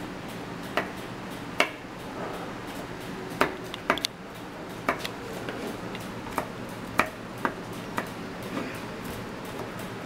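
Kitchen knife chopping garlic cloves on a wooden cutting board: a dozen or so sharp, irregular taps of the blade striking the board.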